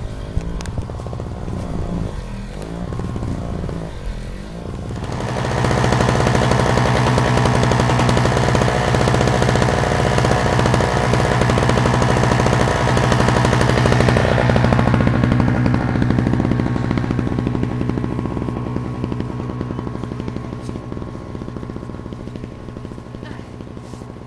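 An engine running steadily, growing much louder about five seconds in, then slowly fading over the last several seconds.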